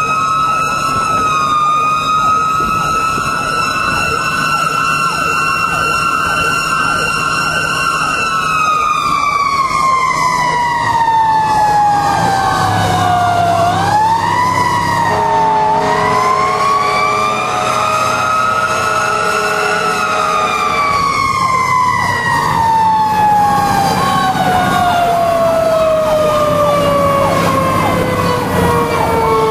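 Fire engine siren heard from inside the cab, winding slowly up and coasting down twice, the second time falling steadily to a low pitch near the end. A steady multi-note air horn chord sounds for several seconds midway, over the truck's running engine.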